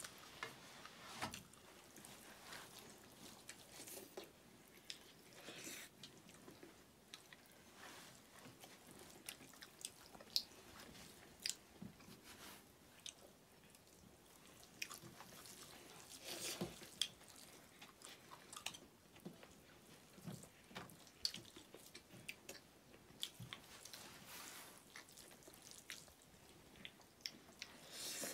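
Faint eating sounds: chewing, and fingers mixing food on metal plates, with scattered small clicks and smacks.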